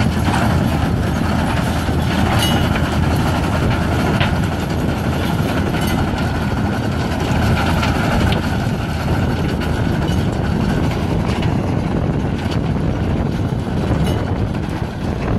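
Farm tractor engine running steadily under load while pulling a trailed implement through stony ground, with the machine's continuous rattle and a few sharp clicks.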